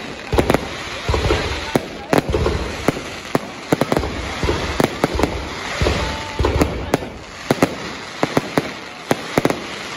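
Aerial fireworks shells bursting overhead: deep booms about once a second, with sharp cracks and crackling between them.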